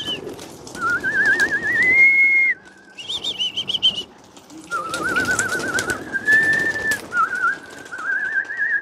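A pigeon keeper whistling to his flying flock: several warbling, trilled whistle phrases in a row, the pitch wavering quickly up and down and stepping between a lower and a higher note, with short breaks between phrases.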